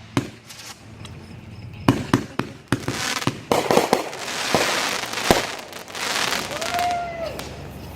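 Fireworks going off: a run of sharp bangs from bursting shells, irregularly spaced, with a spell of dense crackling in the middle.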